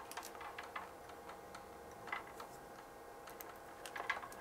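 Scattered light clicks of bench test-equipment front-panel buttons and knobs being worked, a few near the start, two about two seconds in and a cluster near the end, over a faint steady electrical hum.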